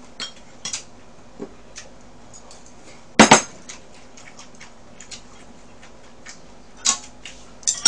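Chopsticks and spoons clinking and tapping against bowls and a frying pan at a meal. Scattered light clicks, with one sharp clack about three seconds in and two more near the end.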